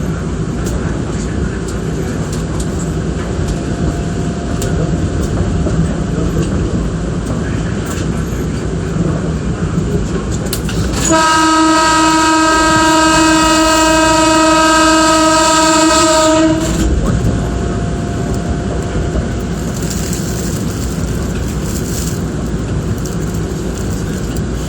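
Electric train running along the rails, heard from the leading car. Midway it sounds one long steady horn blast of about five and a half seconds: a warning to a person crossing the level crossing just in front of the train.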